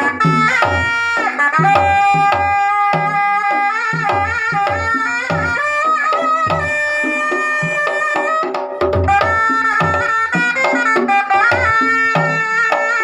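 Traditional drum-led music: hand drums beating a busy rhythm under a sustained melodic line that slides and wavers in pitch, with a short break just before the music picks up again.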